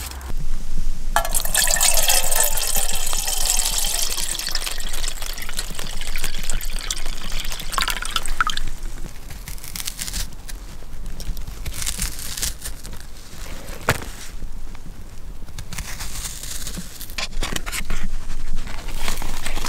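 Liquid poured steadily into a container for about eight seconds, the pitch of the stream slowly falling, followed by quieter handling noise with a few sharp clicks.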